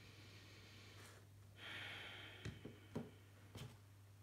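Faint handling noises: a short scuffing slide a little before halfway, then three light knocks about half a second apart as the cased phone is set down on the wooden desk and the cardboard phone box lid and tray are picked up. A steady low hum runs underneath.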